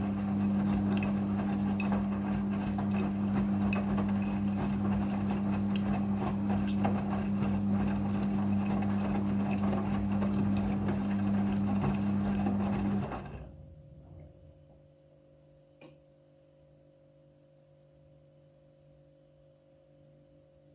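Front-loading washing machine running in its rinse cycle: a steady low electric hum with a rushing water noise, which stops about thirteen seconds in, leaving only a faint hum.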